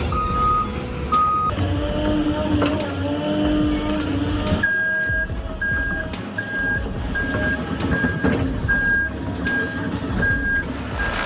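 Heavy machine's engine running with a backup alarm beeping at an even pace; a lower-pitched alarm beeps in the first second and a half, and a higher-pitched one beeps steadily from about halfway on.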